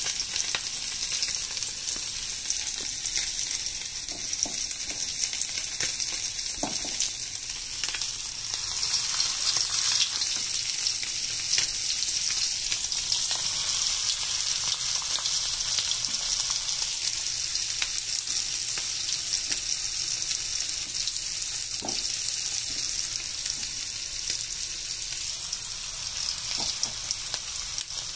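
Rice-flour-coated fish pieces shallow-frying in oil on a tawa: a steady high sizzle with a few scattered pops.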